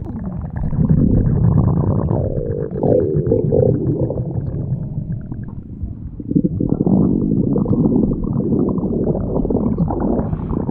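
Stomach growling: a continuous low rumble with gurgles and a wavering, gliding pitch, fuller from about six seconds in.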